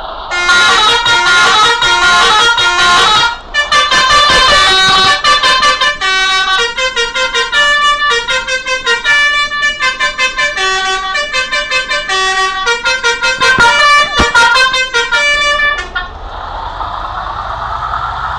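Bus telolet horn, a set of pitched multi-tone horns, playing a fast tune of quickly changing notes for about fifteen seconds, with a short break near the start. It then cuts off, leaving a steady rush of traffic noise.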